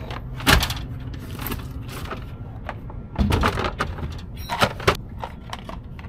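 Several short, sharp clattering knocks, as of gear being handled, about half a second in, a little after three seconds and again near five seconds, over the steady low rumble of an idling truck engine.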